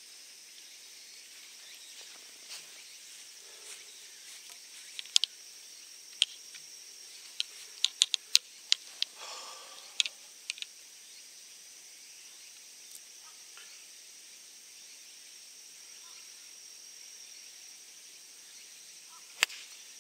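A golf club strikes the ball on a tee shot, one sharp crack near the end. Before it, a steady high insect drone runs under a scattering of sharp clicks between about five and eleven seconds in.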